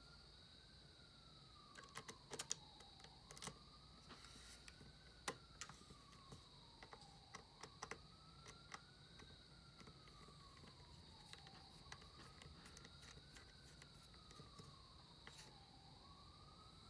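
A faint siren wailing slowly, rising and falling about every four seconds, over a steady high-pitched whine. Scattered small clicks and ticks come mostly in the first half.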